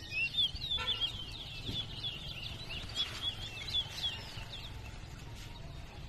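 A caged towa-towa (chestnut-bellied seed finch) singing a long, quick string of short chirping and warbling notes that stops about three-quarters of the way through.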